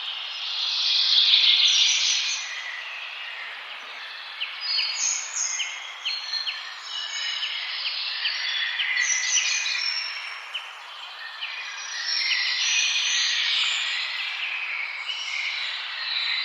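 Several birds singing and calling at once in a forest chorus, over a soft steady background hiss. The song is loudest about a second in and again around two-thirds of the way through, and in the middle one bird repeats a short, sharp note two or three times a second.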